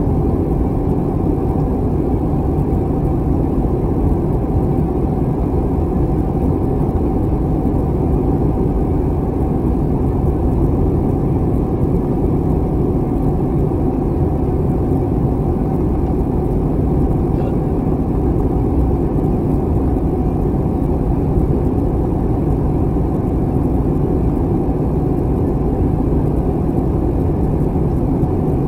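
Steady cabin noise of an Airbus A321 in flight, heard at a window seat over the wing: a deep, even rush of engine and airflow with a faint steady hum, unchanging throughout.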